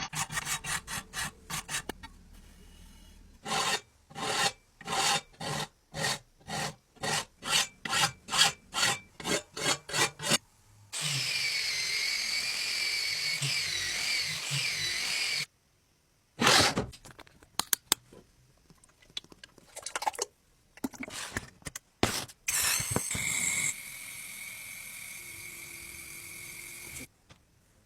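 A rusted steel cleaver blade being scrubbed or sanded by hand in rhythmic back-and-forth strokes, about two a second. Then a small power tool runs steadily with a whine whose pitch wavers under load. After some scattered short scrapes, a second steady whine follows.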